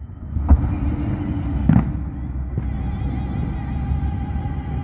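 Aerial firework shells bursting: two booms, about half a second and just under two seconds in, over a steady low rumble, with another boom right at the end.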